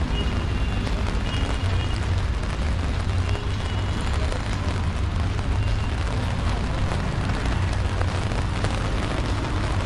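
Heavy rain falling steadily: an even hiss over a strong low rumble, with a few faint, short high tones now and then.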